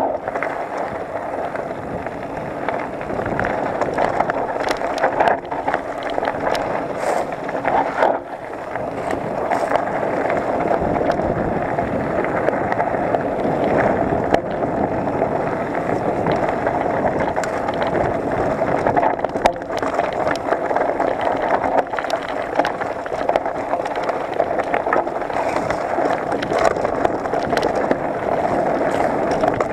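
Mountain bike descending dry, rocky dirt singletrack: the tyres rumble over dirt and stones, and the bike rattles in many quick clicks and knocks, with wind on the microphone.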